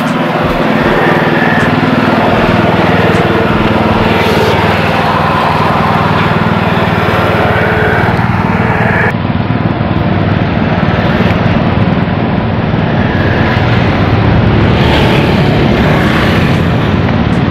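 Steady, loud rumble of wind buffeting a phone microphone while riding along a road, mixed with road noise.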